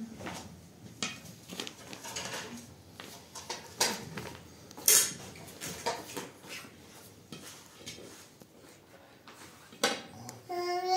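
Metal serving skimmer and dishes clinking and scraping as rice is served from a metal tray onto plates, in scattered irregular clinks, the loudest about five seconds in. A child's voice starts right at the end.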